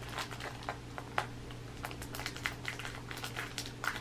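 Baseball trading cards being handled and sorted by hand: a scatter of light, irregular clicks and ticks as the cards are flipped and set down, over a steady low hum.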